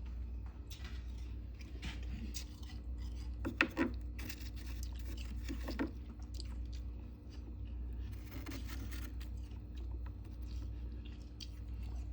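Close-up chewing and crunching of soft, powdery freezer frost: many small crackling crunches, two of them louder about a third and halfway through, over a steady low hum.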